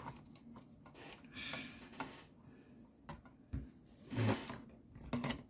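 Irregular small clicks and short scrapes of a hand tool working the metal pins of a circuit-board connector, with light handling knocks.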